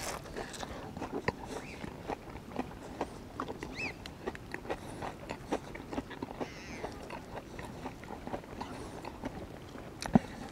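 A person biting into a fish finger burger and chewing it close to the microphone: soft, irregular mouth clicks and smacks.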